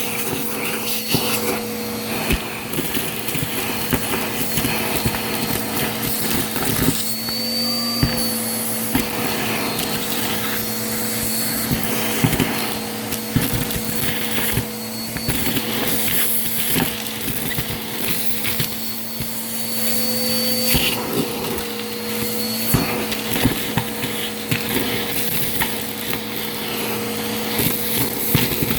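Vacuum cleaner running steadily, with dense irregular crackling clicks as it sucks up crunchy debris. Its motor pitch shifts briefly about eight seconds in and again around twenty-one seconds.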